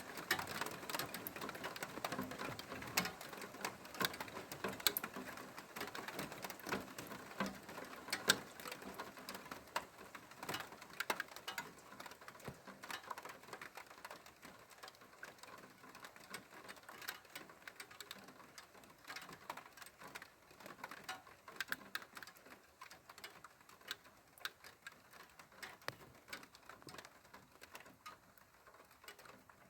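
Rain during a thunderstorm, with drops ticking and pattering irregularly on a hard surface close by. The patter thins out and grows quieter towards the end as the shower eases.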